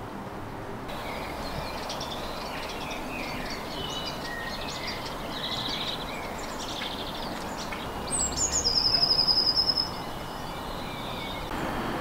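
Songbirds singing, a run of short high chirps and song phrases, with one loud, fast trill about eight seconds in. A steady low background noise runs underneath.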